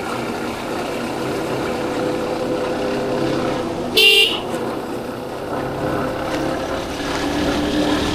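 Motorcycle running steadily on the road, its engine a steady drone, with one short loud horn toot about four seconds in.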